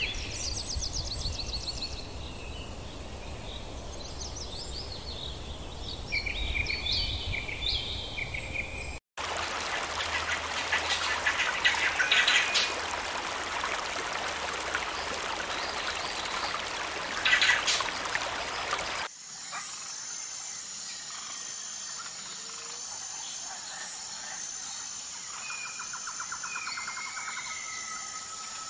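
Wild birds chirping and calling, in a sequence of clips cut together: first quick repeated chirps, then a louder, noisier stretch with two loud bursts, and from about two-thirds of the way in a high, evenly pulsing trill under lower bird calls.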